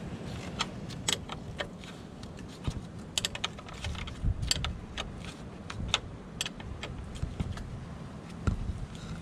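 Irregular metallic clicks and clinks from a ratchet wrench working loose the positive cable's nut on a battery terminal.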